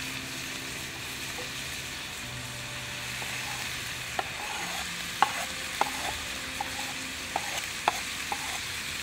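Ground meat sizzling in a cast iron pot as diced onions are scraped in off a wooden cutting board with a knife. From about four seconds in there is a scatter of sharp clicks and pops over the steady sizzle.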